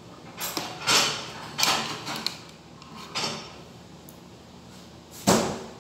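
Eating sounds: a metal spoon scraping rice from a plate, with mouth noises as it is eaten, in several short bursts. The loudest burst comes near the end.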